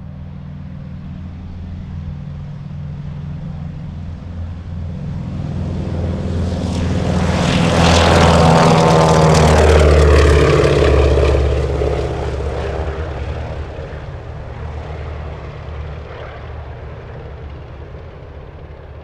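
Lisunov Li-2's twin ASh-62IR nine-cylinder radial engines at take-off power. The sound grows louder as the aircraft runs toward the listener, peaks as it passes about eight to ten seconds in with the pitch dropping, then fades as it climbs away.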